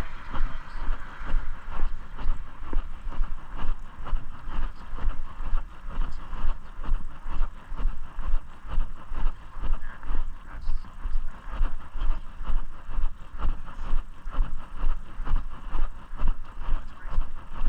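Footsteps of a person walking, heard as regular low thumps about twice a second as each step jolts the microphone, over a steady outdoor hiss.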